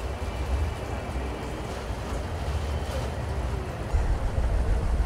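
Street tram running, heard from inside the car: a steady low rumble with hiss above it, the rumble growing louder about four seconds in.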